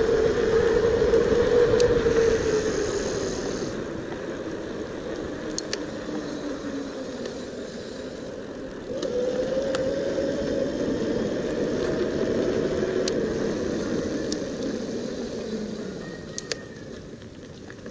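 Bafang BBS02 750-watt mid-drive motor whining as the e-bike is ridden, over wind and tyre noise. The whine falls in pitch as the bike slows, jumps back up about nine seconds in and sinks again near the end, with a few light ticks.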